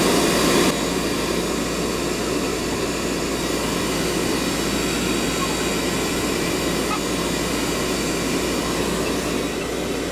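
Oil furnace burner firing, a steady rushing noise, while the furnace heats up before its blower fan comes on. The level steps down slightly under a second in.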